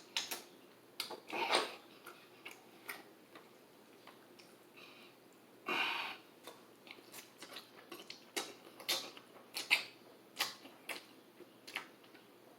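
Close-up mouth sounds of eating: chewing and lip smacks heard as scattered irregular clicks, with a couple of short, louder noisy bursts about a second and a half in and about six seconds in.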